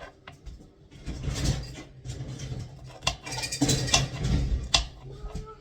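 A kitchen knife cutting vegetables on a cutting board: irregular knocks of the blade against the board, with rustling and handling between cuts.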